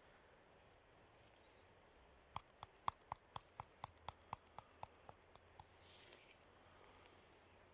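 A quick, even run of about fifteen light knocks, roughly five a second, followed by a brief hiss.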